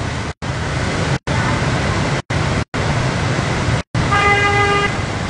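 Slow road traffic wading through floodwater, a steady wash of engines and splashing, cut by several brief total dropouts in the audio. A vehicle horn sounds once, steadily for about a second, near the end.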